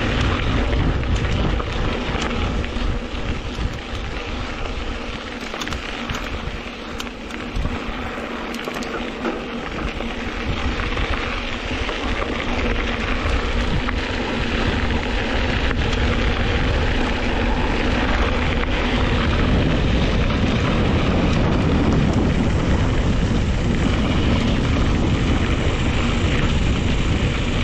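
Wind buffeting the microphone of a camera on a moving mountain bike, over the rumble of its tyres rolling on a dirt road. It grows louder over the second half as the bike picks up speed.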